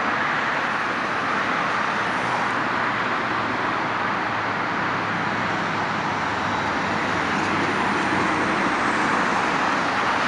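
Steady rush of multi-lane highway traffic, tyre and engine noise from passing cars and trucks blending into one continuous roar.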